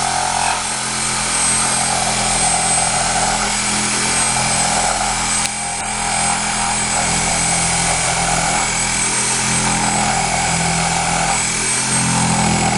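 A power saw runs steadily while cutting out old fascia board, with a thin high whine over a noisy rasp. It cuts off suddenly near the end.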